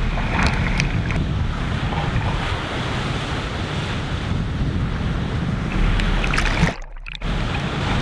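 Lake surf breaking and splashing, with wind rumbling on the microphone. About seven seconds in the sound briefly drops and goes dull before returning.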